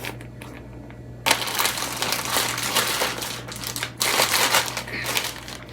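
Plastic bag crinkling and rustling as oats are handled and transferred into it. The rustle starts about a second in, with a brief break before a second stretch.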